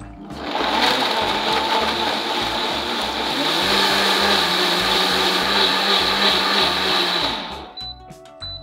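Countertop blender motor starting up and running at full speed, chopping pineapple chunks, banana, yogurt and coconut milk into a smoothie, with a steady high whine over the churning. It cuts out about seven and a half seconds in.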